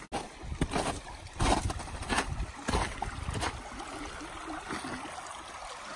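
Footsteps through the woods, a handful of heavy steps in the first three seconds or so, over the steady trickle of a small creek that carries on alone near the end.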